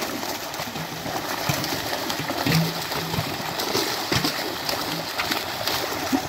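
Fish thrashing and leaping in shallow water inside a drawn-in seine net: many quick splashes over a steady rush of churning water.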